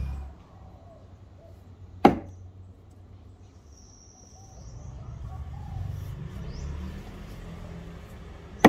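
Axe striking wood twice, two sharp chopping blows about six and a half seconds apart, over a low rumble that swells in the middle.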